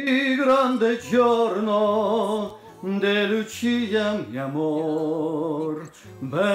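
A man singing a song in long, held notes.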